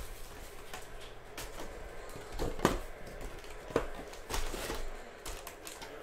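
A cardboard box of trading-card cello packs being handled and opened: rustling, scraping and crinkling of the box and the plastic-wrapped packs, with two sharper knocks about two and a half and nearly four seconds in.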